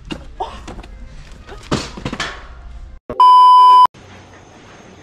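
A single loud electronic beep, one steady tone lasting just over half a second, about three seconds in. Before it, a couple of short scraping knocks as a flat-pack cardboard box is pulled from a warehouse shelf.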